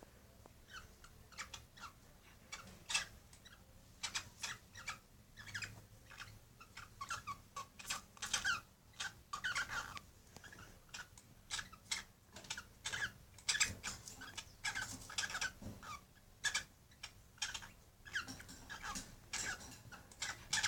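A female pet animal in heat making many short, squeaky calls in quick irregular runs: mating calls.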